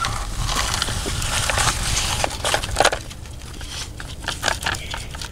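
Toy skid steer loader pushed through wet, gritty mud: its bucket and tyres scraping and crunching for about three seconds, then a run of small crackles and clicks.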